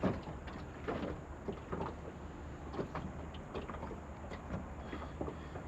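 Water splashing and small knocks at the side of a boat, irregular and short, as a fish is held in the water for release, over a low steady hum.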